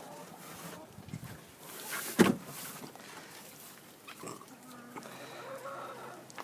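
Farm animals calling faintly, with one sharp knock about two seconds in.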